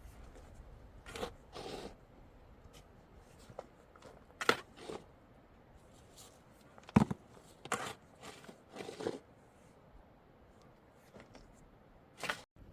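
Scattered knocks, scrapes and rustles of handling work, with one sharp knock about seven seconds in.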